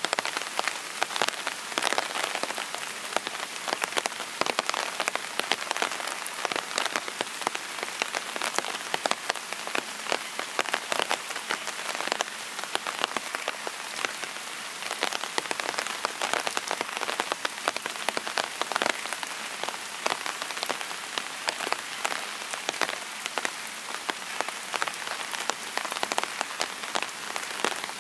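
Steady rain, with many separate drops striking close by in quick, dense, irregular ticks.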